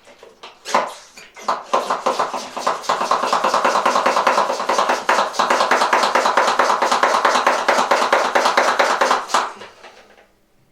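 Handheld water sprayer squirting in rapid, repeated bursts for about nine seconds, putting a little water into balloons.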